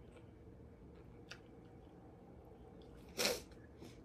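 One short, sharp sniffle through the nose about three seconds in, from a woman who has been crying, with a faint click about a second in.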